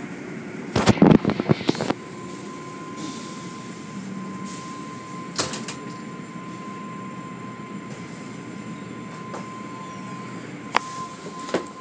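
Tunnel car wash machinery running with a steady mechanical rumble, broken by a burst of clattering knocks about a second in and a few single knocks later, and a faint steady high whine from about two seconds in.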